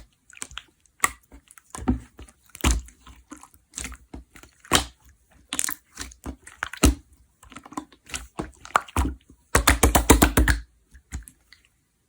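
Clear slime being pressed and stretched by hand, making irregular sticky clicks and small pops, with a quick rapid run of pops near the end.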